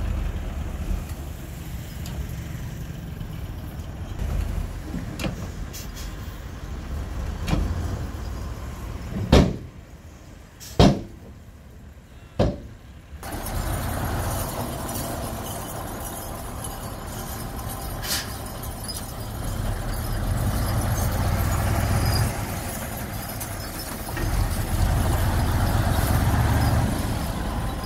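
Heavy dump truck's diesel engine running, with three loud bangs about a second and a half apart near the middle. The engine grows louder in the second half, swelling twice.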